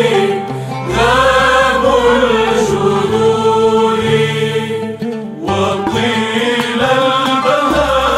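Arabic Christian hymn: a slow, chant-like sung melody with long gliding notes over sustained low accompaniment, dipping briefly about five seconds in.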